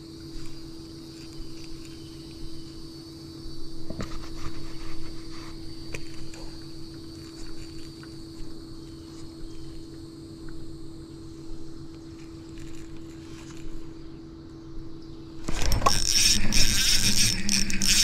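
A steady low hum from a small electric motor. About fifteen seconds in, loud rustling and spinning-reel handling noise take over as the rod is snatched up on a bite.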